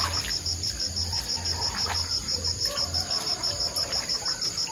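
Cricket chirping steadily in a fast, even rhythm of about five high-pitched chirps a second.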